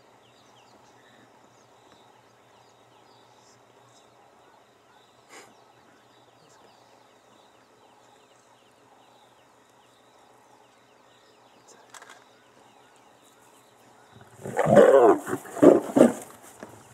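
Lions snarling and growling near the end: a short, loud burst of several harsh calls as the lioness turns on the male lion after he bites her rump. Before it, only a faint, quiet bush background.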